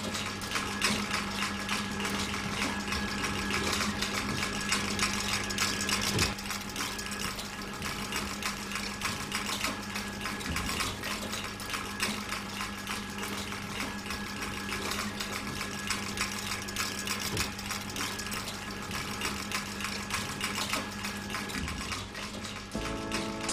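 Mechanical automaton running: a dense, rapid clicking and rattling of its moving parts over a steady low hum.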